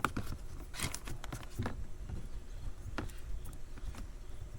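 Scattered light clicks and taps of plastic and metal car parts being handled and fitted by hand, with a cluster of quick clicks about a second in and single sharper ones near the start and about three seconds in.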